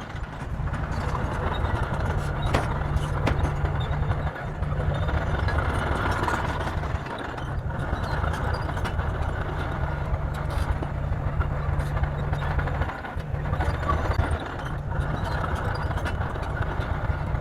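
Bulldozer's diesel engine running steadily with a deep rumble, dipping briefly a few times, with scattered sharp knocks and clanks over it.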